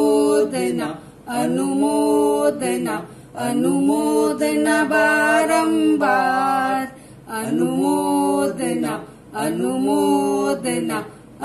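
A woman singing a devotional song solo without accompaniment, in phrases of long held notes with short pauses for breath between them.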